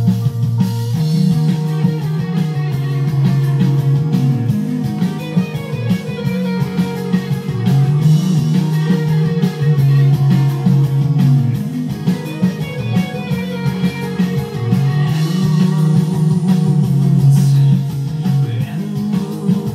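Electric guitar playing a fast picked riff, loud and continuous, the notes changing rapidly over shifting low notes.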